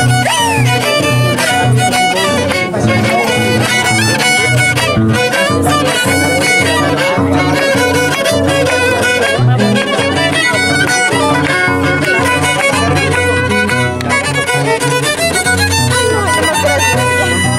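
Violin and Andean harp playing together: the violin carries the melody over the harp's repeated low bass notes.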